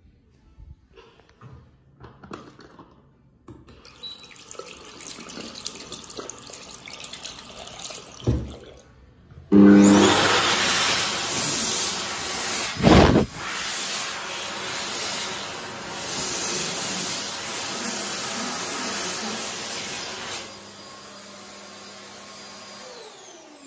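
World Dryer Airforce high-speed hand dryer switching on abruptly about ten seconds in and blowing a loud rush of air over hands held under it. Its sound drops to a lower level about twenty seconds in, and the motor winds down with a falling whine near the end.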